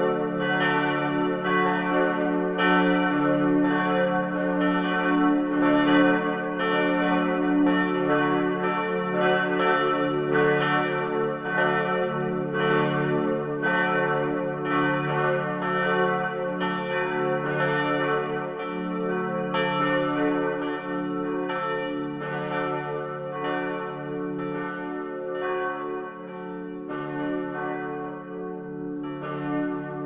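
Church bells pealing, struck over and over so that their long ringing tones overlap into a continuous hum. The ringing slowly gets quieter toward the end, with the strokes thinning out.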